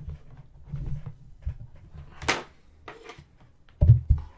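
Handling noise from a camera being moved and adjusted: scattered small knocks and rustles, a brief scrape about two seconds in, and a few heavier low thumps near the end.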